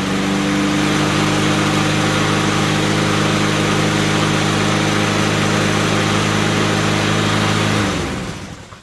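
Honda GCV160 single-cylinder mower engine running steadily at an even speed with the choke open, then shut off near the end and dying away. It runs without the choke now, the choke fault fixed.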